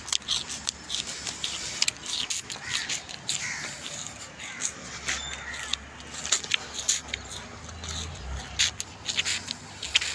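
Dry sugarcane leaves rustling and crackling as they are brushed and pushed aside, an uneven run of sharp crackles with a faint low rumble underneath.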